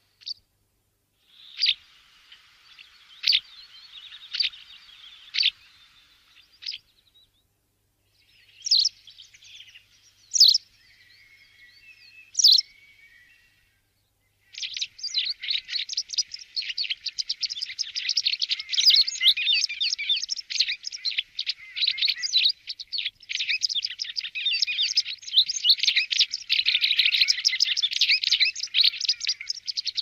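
White wagtail calling. Sharp, separate high call notes about a second apart give way after a short pause to more calls with some twitter. From about halfway there is a fast, continuous twittering song.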